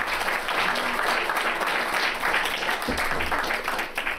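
Indoor audience applauding, a steady round of clapping from a seated crowd that dies away near the end.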